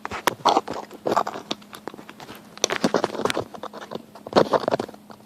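Workbench handling noise as the small strip of sheet stock for a draw-latch catch is picked up and positioned: irregular clusters of clicks, knocks and light scraping.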